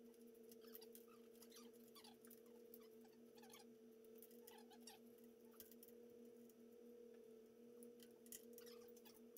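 Faint handling noise of wiring: scattered small clicks and rustles as wires and connectors are sorted and plugged together, over a steady low electrical hum.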